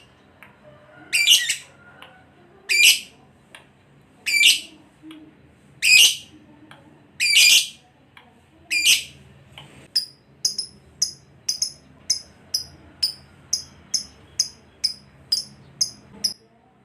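Lovebird calling: loud, harsh, high screeches about every second and a half. From about ten seconds in, these give way to a quicker run of short, high chirps, about two a second.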